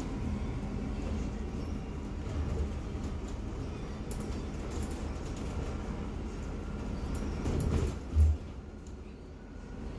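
Bustech ZDI city bus on the move, heard inside the cabin: a steady low engine and road rumble, with a single loud low thump about eight seconds in.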